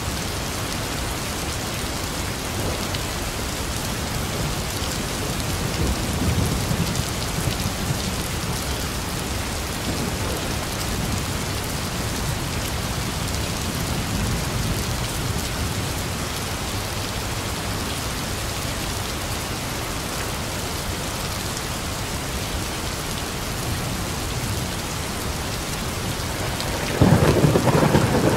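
Heavy, steady rain with low rolls of thunder rumbling under it now and then, and a louder, sharper thunderclap breaking in near the end.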